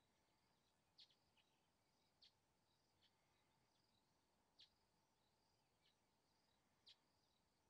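Near silence: faint outdoor ambience with a steady high insect trill and a handful of short, high chirps spaced a second or two apart.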